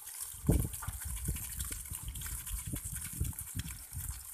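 Water running steadily, a constant hiss, with irregular low dull bumps, the loudest about half a second in.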